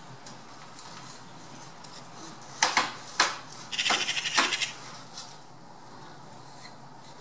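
Eurasian magpie chattering: a few harsh single calls about two and a half seconds in, then a rapid rattle of harsh notes lasting about a second. This is the alarm chatter magpies give when mobbing a bird of prey.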